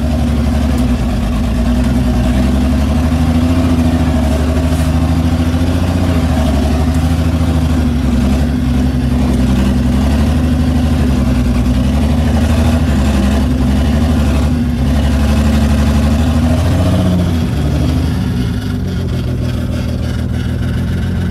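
Engine of a 1953 International R-180 pickup running as the truck is driven slowly, heard from inside the cab, its speed rising and falling. About eighteen seconds in it drops and settles to a lower, steady run.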